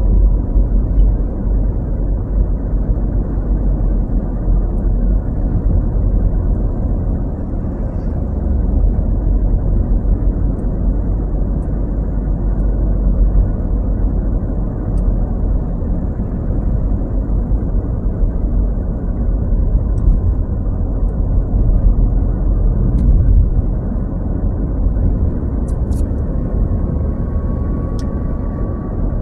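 Steady low rumble of a car driving at road speed, tyre, engine and wind noise heard from inside the cabin, with a few faint clicks.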